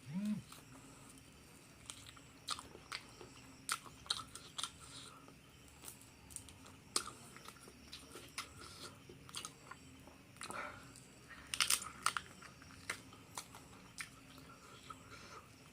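Close-miked eating: crispy fried duck and rice being bitten and chewed, with irregular crunches and wet mouth clicks and a louder cluster of crunches about twelve seconds in.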